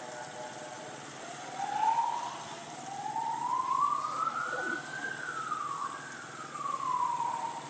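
Infant long-tailed macaque screaming: a short rising cry about two seconds in, then one long wavering call that climbs for a few seconds, peaks and slides back down.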